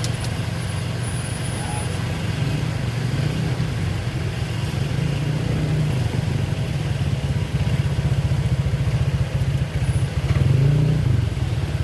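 A motor vehicle engine running with a low, steady rumble.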